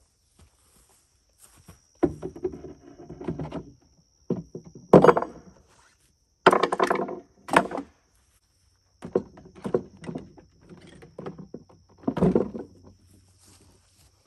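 A run of wooden thunks, knocks and clatter as a chainsaw and hand tools are set down into a wooden carrier box, in about five separate bouts.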